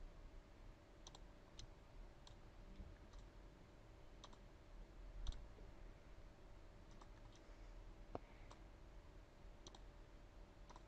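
Faint computer mouse button clicks, about a dozen at irregular intervals, over near-silent room tone with a faint steady hum.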